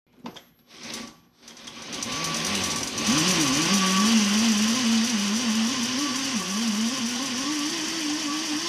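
Two brief knocks, then the electric minibike's motor and chain drive starting up and running with a steady whine whose pitch wavers, over a hiss, stepping up slightly near the end.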